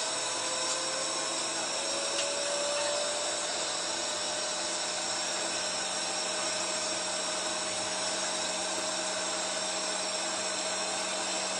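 Steady rushing cabin noise of a moving vehicle, with a faint whine that rises slightly in pitch over the first few seconds.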